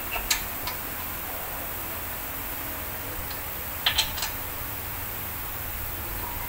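Metal clicks and clanks from a brake caliper and pads being fitted over a new brake rotor: a couple of light clicks near the start and a louder cluster of sharp clanks about four seconds in, over a steady hiss.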